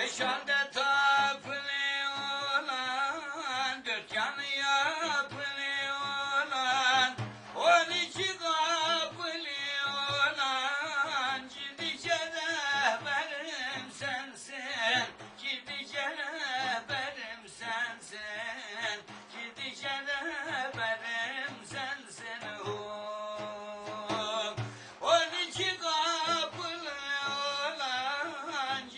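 Male voice singing an Islamic devotional hymn (ilahi) in a wavering, melismatic style over instrumental accompaniment with a steady drone note.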